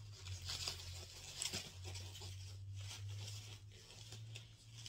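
Faint, irregular rustling and crinkling of packaging as a handbag is unwrapped from its white wrapping by hand, over a steady low hum.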